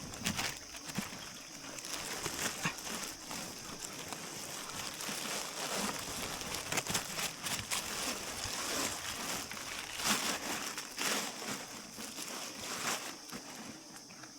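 Irregular rustling and crinkling with scattered knocks, loudest about ten and eleven seconds in, over a steady high-pitched hiss.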